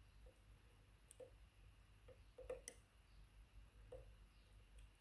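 Near silence with a few faint, short clicks and taps of a lock pick working the pin stack of a Zeiss Ikon WSW pin-tumbler lock, two close together about halfway through being the loudest.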